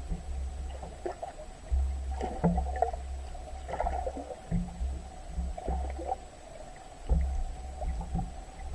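Water movement heard through a submerged camera: irregular bursts of low, muffled rumble with scattered knocks and clicks, over a faint steady hum.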